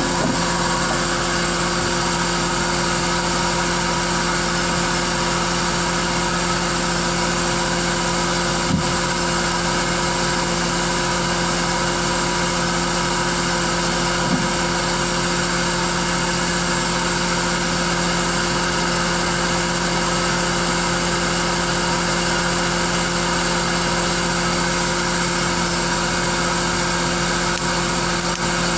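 Fishing boat's engine idling: a steady, unchanging drone with a constant hum. There are two brief knocks, about nine and fourteen seconds in.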